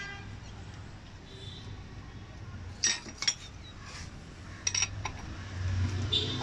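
Small steel parts of a diesel injection pump being handled on the bench, clinking against each other and the pump body: a few sharp metallic clicks near the middle and another short cluster about a second and a half later, over a low steady hum.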